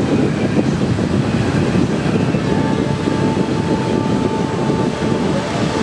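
Steady low rumble of a large cruise ship passing close by under way: its engines and propulsion, together with the wash at its bow. A faint high steady tone joins about halfway through.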